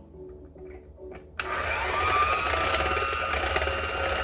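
Electric mixer switched on about a second and a half in, its motor whine rising and settling into a steady run as the beaters whip egg whites into meringue.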